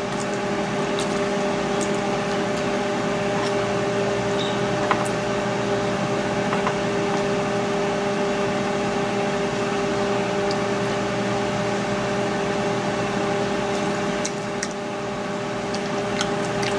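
Steady hum and whirr of a countertop cooking appliance running while it heats squash. A few faint ticks of a metal fork against the cooked squash sound over it.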